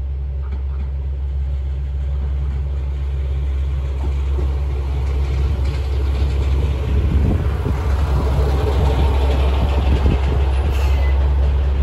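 Ibara Railway IRT355 diesel railcar pulling into the station platform. Engine and wheel-on-rail rumble build up and grow louder from about halfway through as it draws alongside, over a steady low hum.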